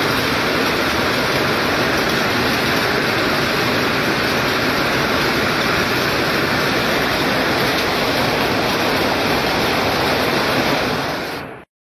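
Heavy hailstorm: hailstones pelting paving and parked cars, a steady dense rush of impacts that cuts off suddenly near the end.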